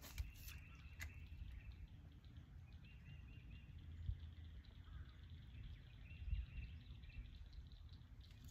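Quiet pond-side ambience: a low wind rumble on the microphone with faint bird chirps, and a few light clicks near the start.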